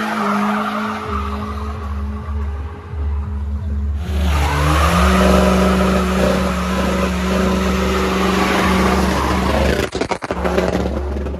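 Car engine held at high revs with tyres screeching. The revs glide up and down at first, then about four seconds in the engine and tyres get louder and hold steady for several seconds before a brief break near the end.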